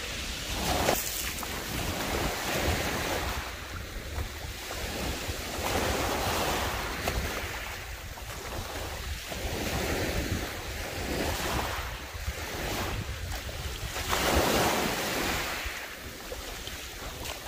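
Small waves breaking and washing up a pebble beach, swelling and falling every few seconds, with wind rumbling on the microphone.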